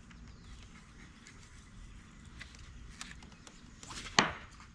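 A few light clicks and knocks, with one sharp, loud knock about four seconds in.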